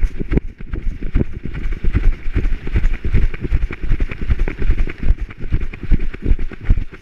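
Dog galloping on a trail of dry leaves, heard from a camera harness on its back: a quick, uneven run of thumps from its strides and the jolting mount, over the crunch and rustle of leaves underfoot.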